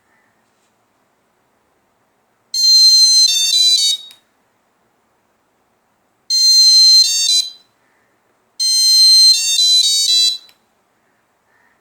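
Security-alarm buzzer driven by an ATmega8 microcontroller, sounding in three loud bursts of electronic beeping, each a held high tone followed by a quick run of shifting notes.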